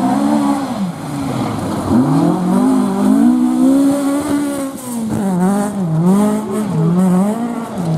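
Rally car engine being driven hard. Its note rises and falls again and again, with quick drops and climbs that come closer together in the second half.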